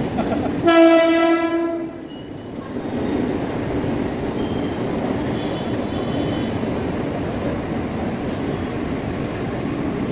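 Mumbai suburban electric local train sounding its horn once, about a second in, for about a second. It then runs past with a steady rumble of wheels on the rails.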